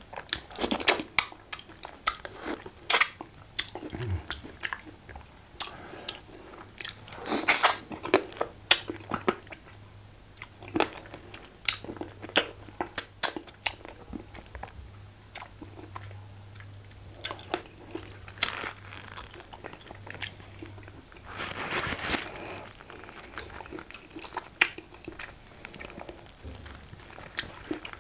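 Close-miked eating of catfish head in banga soup: a person chewing, biting and working the fish in the mouth, with irregular wet clicks and smacks. Two longer, louder stretches come about seven seconds in and again around twenty-two seconds.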